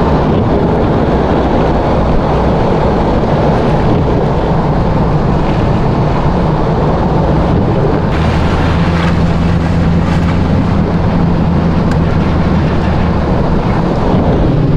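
A car driving: a steady engine hum under loud, even road and tyre noise.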